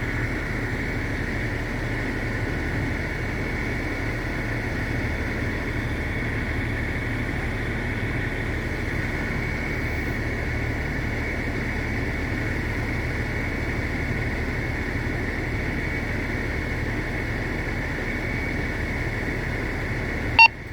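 A radio channel held open with no voice on it: a steady low rumble and hiss with a thin constant whine. It swells in at the start and cuts off with a click shortly before the end.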